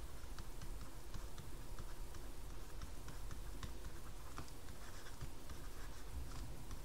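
Faint, irregular ticks and light scratches of a stylus on a tablet or pen-display surface as words are handwritten.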